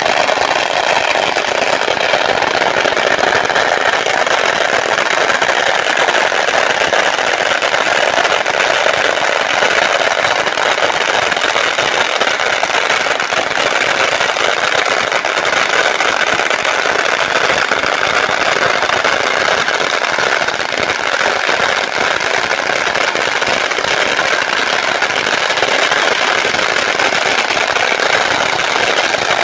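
Long belts of firecrackers exploding in one continuous, rapid crackle of bangs at a steady loudness, with several strands burning at once.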